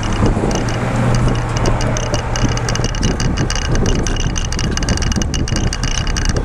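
Wind buffeting the microphone and road noise from riding a bicycle at about 15 mph. A steady low hum runs under it for the first three seconds or so, then fades out.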